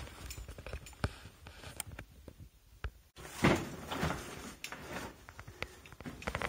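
Footsteps and shoe scuffs on sandstone rock, with irregular small knocks and scrapes; a louder scrape comes about three and a half seconds in.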